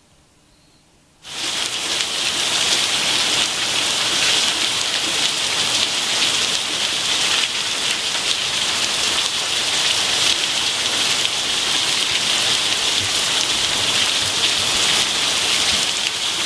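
Heavy rain falling hard in a dense, steady downpour, which cuts in suddenly about a second in after a quiet start.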